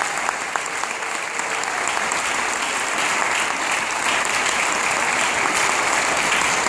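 Congregation applauding, dense and steady.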